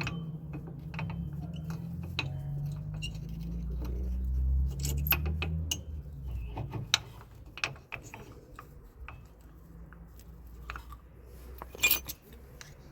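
Metal tools and parts clinking and knocking against each other in a series of scattered sharp clicks, with a low rumble under the first half and one louder clink near the end.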